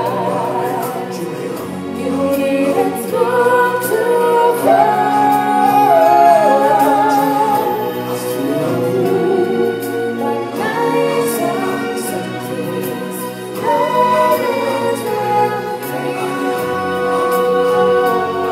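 Live stage-show song: singing with choir voices over musical accompaniment, with long held notes.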